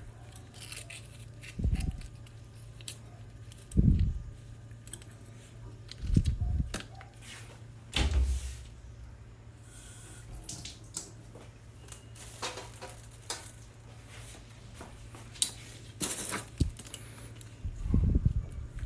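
Oysters being shucked by hand: a knife clicking and scraping against the shells, shells knocking together, and dull thumps every couple of seconds, over a steady low hum.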